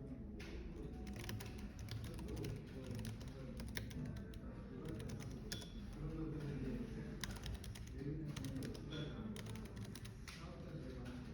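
Typing on a computer keyboard, a quick irregular run of keystroke clicks, over a low murmur of café chatter.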